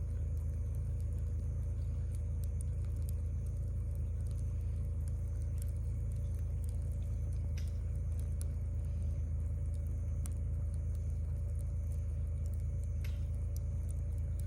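Wood campfire burning, with scattered sharp crackles and pops, two louder pops about halfway through and near the end, over a steady low rumble.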